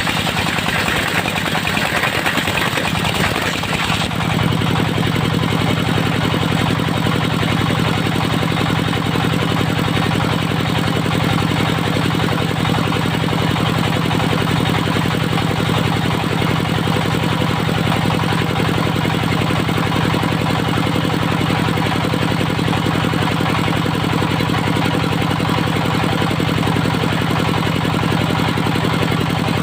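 Diesel engine of a portable circular-saw sawmill running steadily. A harsher, higher noise over it in the first four seconds cuts off, leaving an even engine hum.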